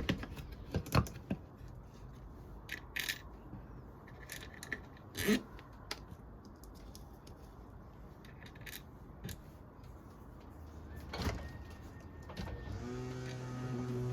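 Scattered light clicks and knocks from handling small hardware: a bolt being fitted through the handle pivot of a plastic squeeze clamp.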